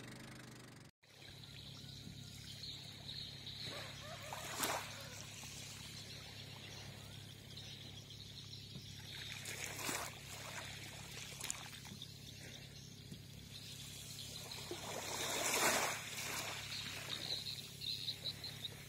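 Water lapping and trickling over a steady low hum, with three brief louder surges.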